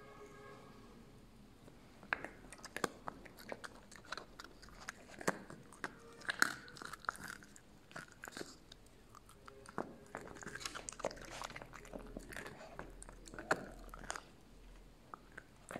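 A puppy gnawing and chewing a large meaty bone: irregular crunches and sharp cracks of teeth on bone.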